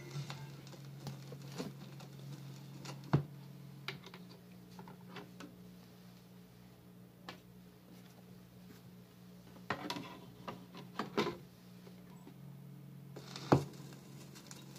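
Handling noise as a 12-inch vinyl record is changed on a turntable: scattered clicks and knocks over a steady low hum. There is a sharp knock about three seconds in, a cluster of knocks around ten to eleven seconds, and another sharp knock near the end.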